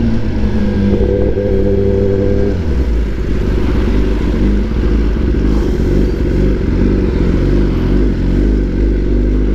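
Kawasaki ZX-10R inline-four engine running through a very loud aftermarket exhaust with no dB killer fitted, at low steady revs. Its pitch drops to a lower, rougher rumble about three seconds in.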